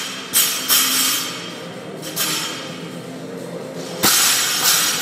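Loaded barbell with plates bouncing and rattling after being dropped onto a rubber gym floor, the plates and collars clinking. A second loud metal clatter comes about four seconds in as the bar is gripped and pulled from the floor again.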